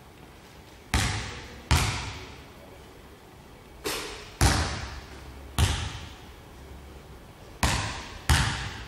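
Basketball bouncing on a wooden gym floor: seven sharp, uneven bounces, mostly in pairs, each echoing through the large empty hall.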